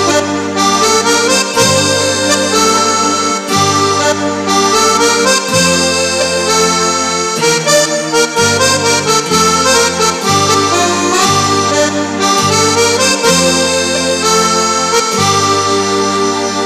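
Casio CT-X9000IN keyboard playing a custom accordion tone: a reedy accordion-like melody over sustained left-hand bass chords that change every second or two.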